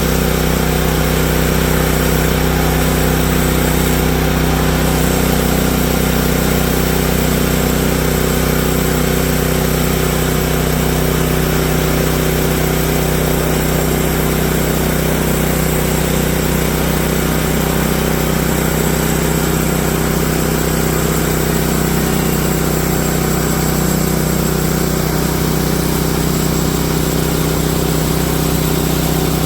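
Woodland Mills HM130 MAX portable band sawmill's gasoline engine running steadily under load as the blade cuts through a log.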